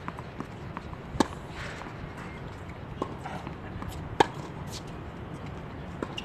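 Sharp pops of a tennis ball striking a racket or the hard court: two loud ones about three seconds apart, with fainter ones between and near the end, over steady outdoor background noise.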